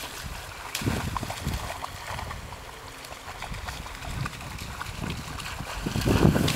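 Water splashing and sloshing as a dog swims and paddles in a lake, with a louder surge about six seconds in as it turns. Irregular rumbling gusts of wind on the microphone.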